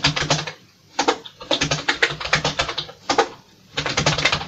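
Commodore VIC-20 keyboard being typed on, keys clicking in quick runs with short pauses between them.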